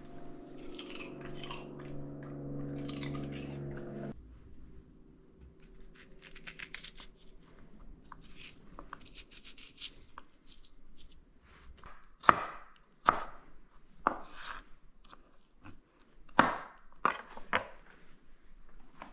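Crisp celery stalks being snapped and scraped by hand, ending in a run of six loud, sharp snaps in the second half. In the first few seconds a steady hum with crunching cuts off suddenly.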